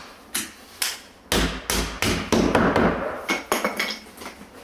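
A run of sharp, irregular knocks on the timber door jamb, about a dozen, quickest in the middle, as a protruding packing wedge is knocked off the top corner of the jamb.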